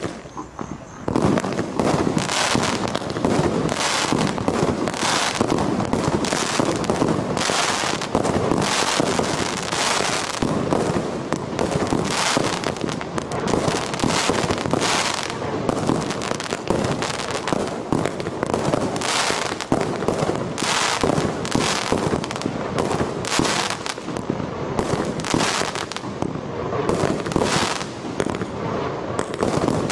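A 61-shot 'Apocalypse' firework cake firing from a single ignition, reaching full strength about a second in: shots and bursts in quick succession, roughly one to two a second, over a dense, continuous noise.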